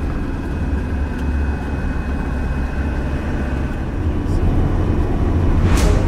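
Steady engine and road drone inside a motorhome's cab while driving at motorway speed, with a brief hiss near the end.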